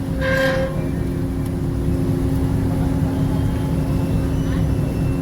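Steady low engine rumble with a constant droning hum. The last pulse of a repeating beep ends about half a second in.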